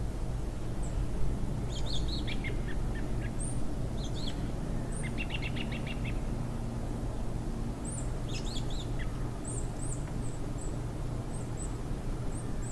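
Small birds chirping and calling in short high notes, with a quick trill about five seconds in, over a steady low rush of background noise.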